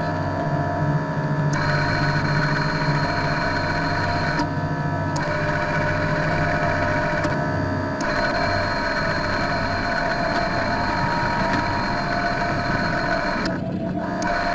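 Thunder Tiger RC model submarine's electric drive running, heard from inside the hull as a steady mechanical hum with a higher whine that cuts out briefly three times.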